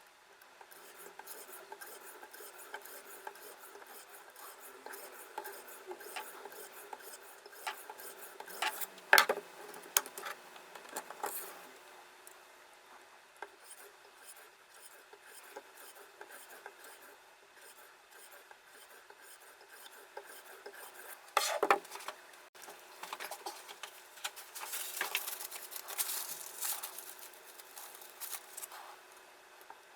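Sharpening stone on a guided knife-sharpening system, rubbing back and forth along a Victorinox blade in quick, continuous scraping strokes. There are sharp clicks about 9 seconds in and again about 21 seconds in, and a louder run of strokes a few seconds after the second click.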